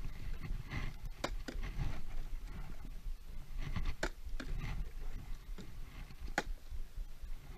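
A partly filled plastic water bottle knocking down onto a concrete sidewalk, several sharp clacks: a pair about a second in, another pair at about four seconds and one near six and a half seconds, over a low rumble.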